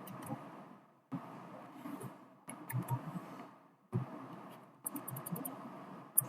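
Low background noise that cuts in and out several times, with a quick run of faint clicks about five seconds in.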